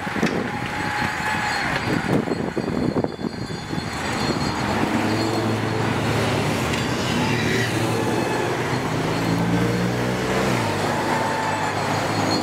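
A pack of road-racing bicycles rushes past with whirring wheels and wind noise. Then race support cars drive by one after another, their engines and tyres making a steady low hum that drops in pitch as a car passes, about ten seconds in.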